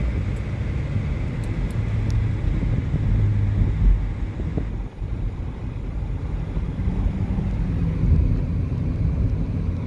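Motorcycle engine running under way with wind rush, a steady low rumble whose pitch shifts a little, briefly dipping about halfway through.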